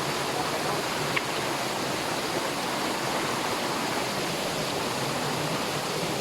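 Steady rush of water from a rocky mountain stream near a waterfall.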